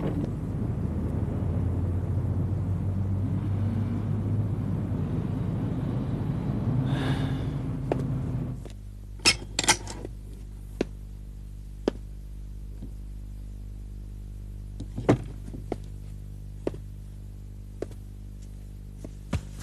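A vehicle rumbling steadily with a low drone as it leaves, with a brief louder burst about seven seconds in. The rumble cuts off abruptly after about eight and a half seconds, leaving a quieter steady hum broken by scattered sharp knocks and taps.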